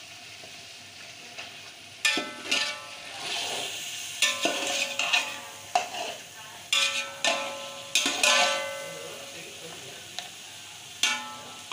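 A metal spoon scrapes and knocks against a metal cooking pot as chunks of boiled beef are stirred and fried in oil over a steady sizzle. About two seconds in, a run of sharp clanks begins, about a dozen in all, and each one leaves the pot ringing briefly.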